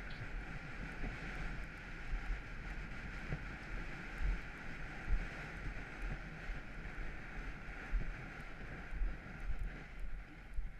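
Wind rushing over a rider-mounted GoPro on a galloping horse, a steady hiss, with dull low thumps about once a second from the horse's stride.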